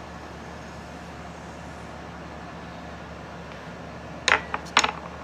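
Steady low mechanical hum in the room, then a quick cluster of about four sharp knocks or clatters near the end.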